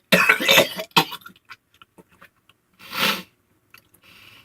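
A man retching hard, a loud heave in the first second and a second, shorter heave about three seconds in, as he vomits up roasted eel.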